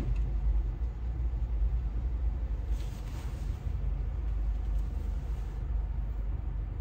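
Car cabin road noise while driving on a highway: a steady low rumble of tyres and engine under a light hiss, with a brief swell of hiss about three seconds in.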